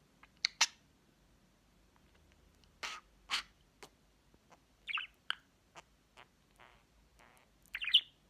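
Budgerigar giving short soft chirps and clicks, about a dozen at irregular intervals, with the loudest ones just after the start and a quick cluster near the end.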